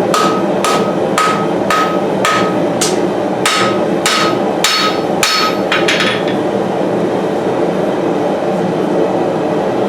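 Hand hammer forging a puukko knife blade on the anvil: about two ringing blows a second, stopping about six seconds in. The gas forge's burner roars steadily underneath.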